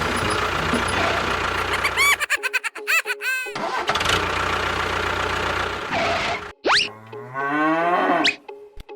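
A model vehicle's motor runs steadily for about two seconds. It then breaks into a string of edited sound effects: a burst of quick rising-and-falling pitched chirps, a noisy stretch, and a long call falling steeply in pitch, with a quick rising sweep near the end.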